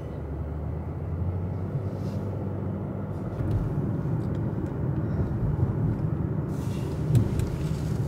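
Car cabin road noise while driving: a steady low rumble of tyres and engine, with a brief louder burst of noise about seven seconds in.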